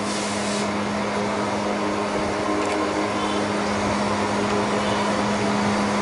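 Steady machine hum: an even rushing whir with a constant low tone, like a running electric motor and fan.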